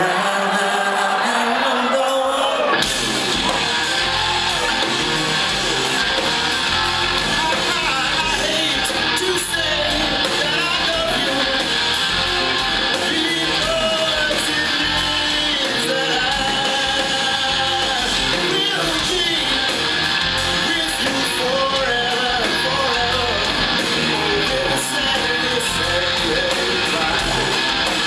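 Rock band playing live in a large hall, heard from the audience: electric guitar and lap slide guitar with singing, and the drums and bass come in about three seconds in and carry on at full volume.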